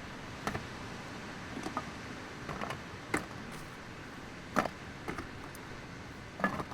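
Scattered light clicks and knocks, about seven at irregular intervals, over a steady background hiss.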